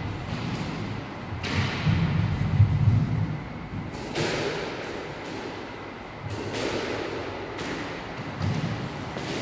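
Squash ball being struck by rackets and smacking off the court walls: several sharp smacks a second or more apart, each ringing briefly in the enclosed court, with low thuds between them.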